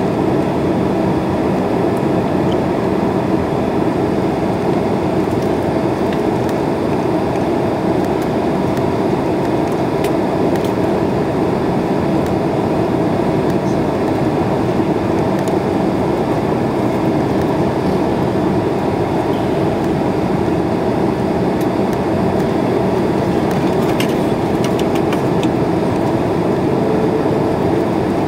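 Steady cabin roar of an airliner in flight, engine and airflow noise heard from a window seat over the wing during the descent. A few faint clicks come near the end.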